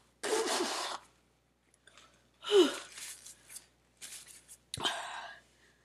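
A woman blowing her runny nose into a tissue and breathing out in hard, noisy gasps, one with a short falling groan, with a sharp click about three-quarters of the way through. Her nose is running from the burn of an extremely hot gumball.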